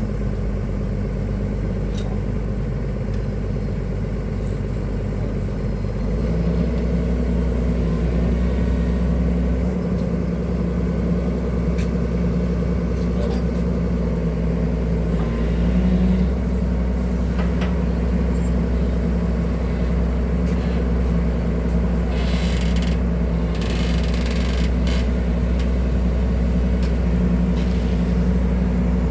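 Excavator's diesel engine running steadily, stepping up to a higher, louder note about six seconds in and holding there.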